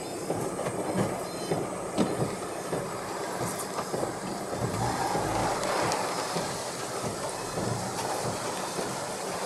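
Strong typhoon wind gusting through apple trees, leaves and branches thrashing in a continuous rush, with frequent short knocks and clatters. The gust swells about five seconds in.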